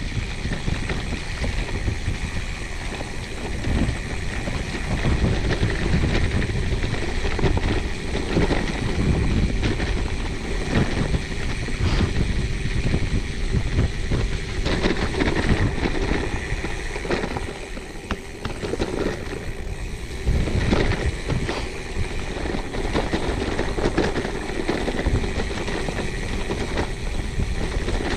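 A gravel bike riding a forest track: steady tyre noise on the dirt and gravel, with frequent small rattles and knocks from the bike over bumps and wind rumble on the microphone.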